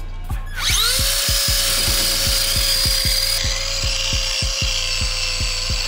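RC car's electric motor and drivetrain whining at full throttle, its TPU-tired wheels spinning on asphalt while the car strains against a tethered hook scale. The whine rises in about half a second in and then holds at one steady pitch, over a background music beat.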